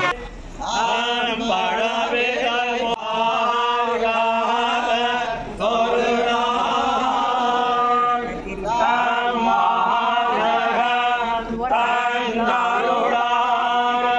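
Group of temple priests chanting together in unison, in long phrases of three to five seconds with short pauses between them, over a steady low drone.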